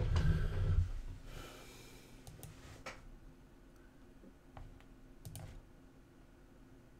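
A few scattered sharp clicks of a computer mouse at a desk, about five spread over the middle seconds, following a low muffled rumble in the first second.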